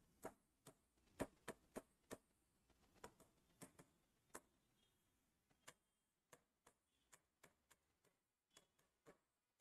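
Faint, irregular ticks of a pen tip tapping on a writing board during writing, closely spaced over the first few seconds, then sparser and fainter.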